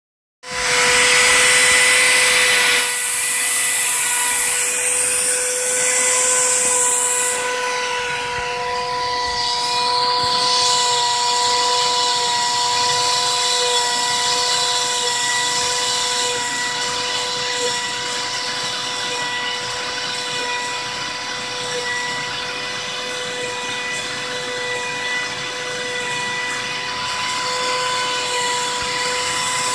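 Brushless spindle (Turnigy P2627L RC outrunner motor driving a Foredom flex-shaft handpiece) running as a steady high whine while its small bit cuts into a copper-clad circuit board.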